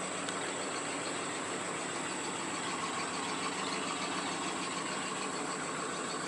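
A vehicle engine idling steadily, most likely the truck that is pulling the tree over with a rope.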